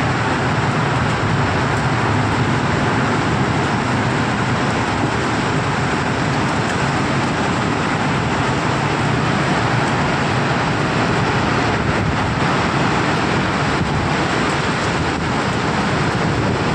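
Tornado winds blowing hard and without let-up, a dense, unbroken rushing noise with its weight in the low end.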